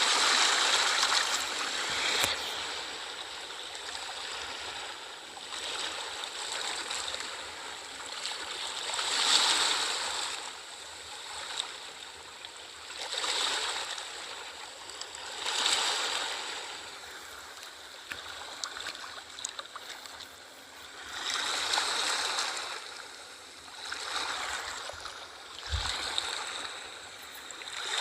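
Ocean waves washing in, the noise of the surf swelling and fading again every two to five seconds.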